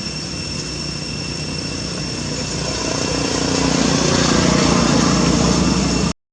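A small engine running and growing louder from about halfway, over a steady high whine; the sound cuts off abruptly near the end.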